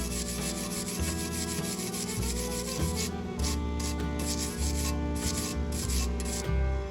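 Stick (SMAW) welding arc on steel, a steady crackling hiss that briefly cuts out a few times in the second half, over background music.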